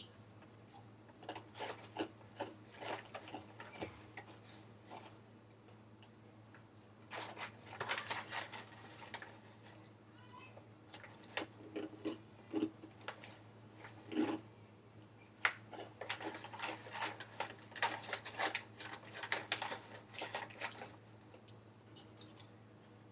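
Waffle crisps being crunched while eaten, with a snack bag crinkling, in irregular clusters of short crackly bursts.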